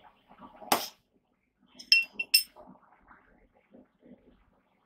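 Hammer blows on a hand punch set on a flat steel bar over a steel block, punching a hole: one heavy blow about a second in, then three quicker, lighter strikes with a high metallic ring about two seconds in.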